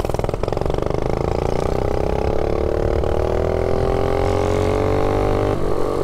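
Mini bike engine accelerating, its note climbing steadily in pitch for about five seconds, then dropping suddenly near the end; the engine has its governor removed. Low wind rumble on the helmet-mounted microphone underneath.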